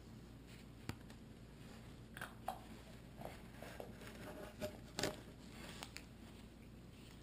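Faint handling sounds: scattered light clicks and short rustles as blue painter's tape is peeled back from a carbon-fibre model glider wing and toilet paper is handled around it. The sharpest tick comes about five seconds in.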